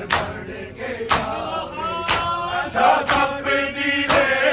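Male voices chanting a noha (mourning lament) together, with the crowd's hands striking their bare chests in unison as matam: one sharp slap about every second.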